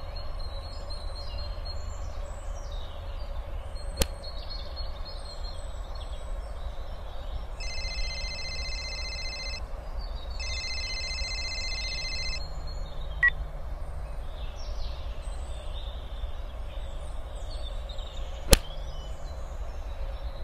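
Outdoor ambience: birds chirping over a steady low rumble of wind. About eight seconds in, a telephone rings twice, each ring about two seconds long. A couple of sharp single clicks are also heard.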